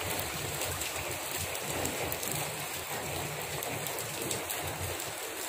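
Rain falling on a wet road covered with shallow rainwater: a steady hiss of many small drops.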